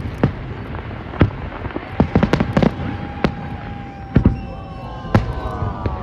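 New Year's Eve fireworks going off, with irregular sharp bangs from bursting shells and firecrackers, and a long steady whistling tone through the middle.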